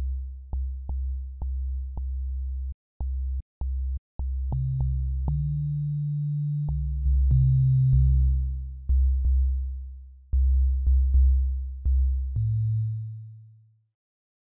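Deep, pure synth bass notes from a software synthesizer in FL Studio, played one after another as the patch is tried out. Each note starts with a small click; some are short stabs and some are held, with a few higher notes in the middle. The notes stop near the end.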